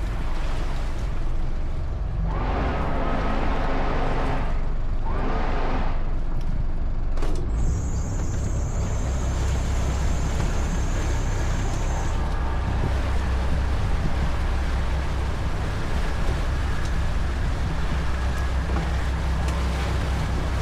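Volvo Penta marine engine of a motor cruiser running steadily underway, a constant low rumble. Two rushes of hiss come in the first six seconds, a single click about seven seconds in, and a faint high steady tone for a few seconds after it.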